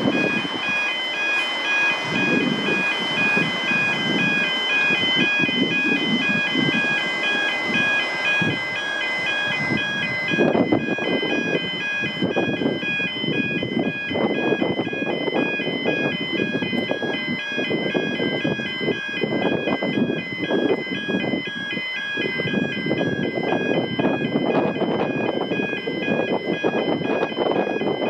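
Railway level crossing warning bells ringing steadily in an even, repeating electronic pattern, with an uneven low rumble beneath.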